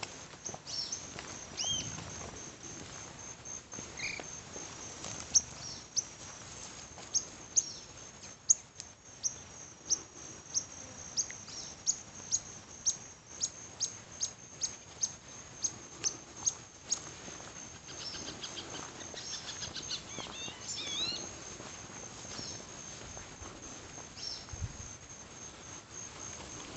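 Steady high-pitched insect trilling with birds chirping over it. In the middle comes a run of short, sharp chirps about twice a second, and there is a burst of twittering calls near the end.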